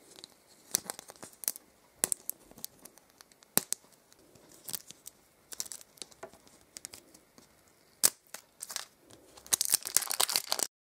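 A printed wrapper being peeled and torn off a plastic surprise-egg capsule: scattered crinkles and crackles, thickening into a dense run of crinkling near the end.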